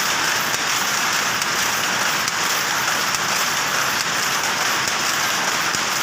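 Powerloom weaving at full speed: a steady, dense mechanical clatter of the shuttle and beating sley.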